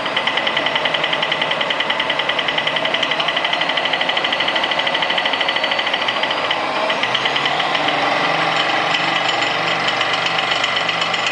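Small electric motor driving a belt-and-pulley spindle, running with a fast, even pulsing clatter and a faint whine that slowly rises in pitch; about six and a half seconds in the rhythm changes and becomes less even.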